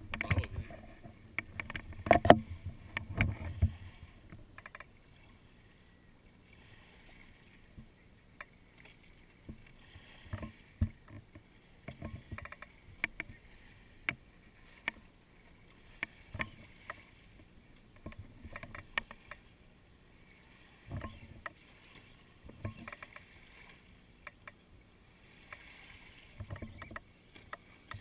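Lake water lapping and splashing against a rocky, pebbly shore, with irregular sharp splashes and clicks that are loudest and busiest in the first four seconds, and soft washes of small waves every few seconds.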